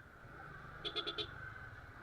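A vehicle horn tooting four times in quick succession about a second in, over steady motorcycle and traffic noise.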